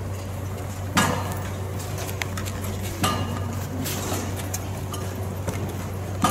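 Three sharp clinking knocks, each ringing briefly, spaced about two seconds apart, over a steady low electrical hum.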